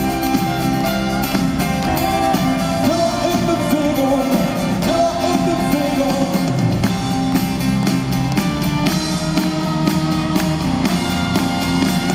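Live unplugged rock band playing a song, with instruments and a sung vocal line.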